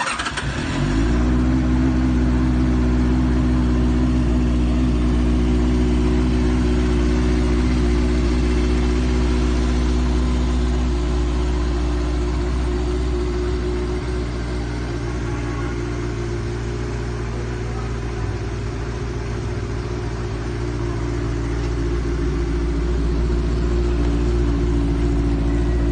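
2021 Benelli TNT 600i's inline four-cylinder engine, on its stock exhaust, catching right at the start with a brief rise in revs that settles within a second or so into a steady idle.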